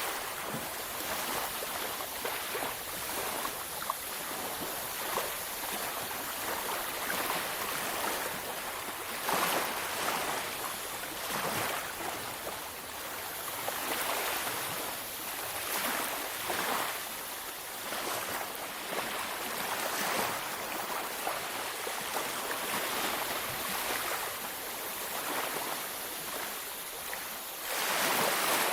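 Sea waves breaking and washing up a beach: a steady surf hiss that swells with each wave every few seconds, loudest near the end.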